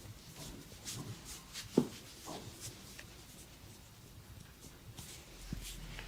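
Hands rubbing and kneading a client's head and back during a barber's massage: soft, scratchy rustling strokes. A single sharp pop stands out about two seconds in.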